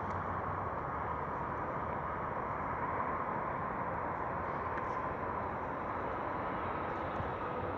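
Steady outdoor street ambience: a constant rushing noise with a faint, nearly steady tone just above it.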